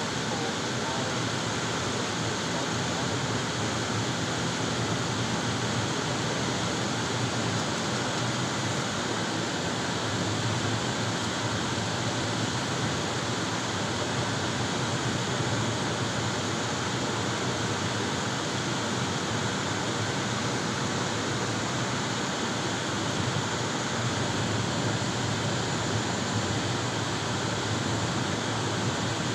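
Steady road and wind noise of a moving car heard from inside the cabin, an even rushing hiss that holds level throughout.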